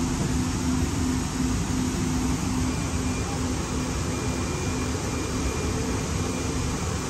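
Siemens LRV4 light rail car running through a tunnel, heard from inside the passenger cabin: a steady rumble with a low hum that pulses about three times a second and fades somewhat in the second half. A faint high whine joins about three seconds in.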